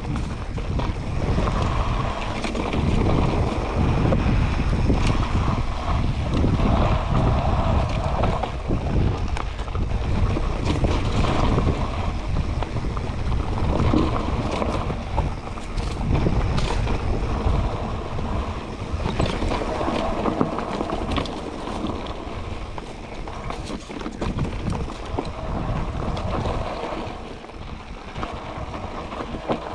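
Mountain bike descending a rough dirt trail: wind rushing over the microphone with tyre noise, swelling and easing in surges and quieter near the end. Frequent sharp clicks and rattles run throughout.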